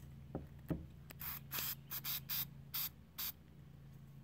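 Aerosol can of battery terminal protector spraying in about six short hissing bursts, coating the winch controller's wire terminals against corrosion and water. Two light knocks come first.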